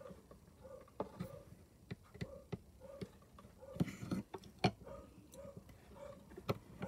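Irregular sharp clicks and taps of a hand bezel rocker working a fine silver bezel down over a cloisonné enamel, with a short scrape about four seconds in.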